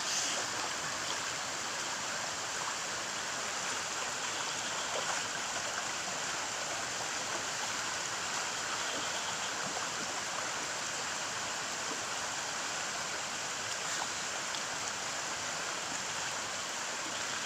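Steady rushing of a flowing stream, water running without a break.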